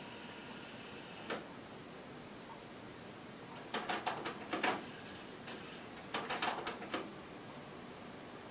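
Pioneer CT-M6R six-cassette changer's tape mechanism clicking as the deck switches into rewind: a single click, then two separate runs of rapid clicks and clatter, each about a second long.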